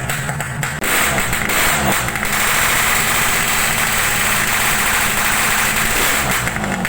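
Motorcycle engine through a loud aftermarket exhaust, revved. It blips about a second in, then is held steady at high revs for several seconds, and drops back toward idle near the end.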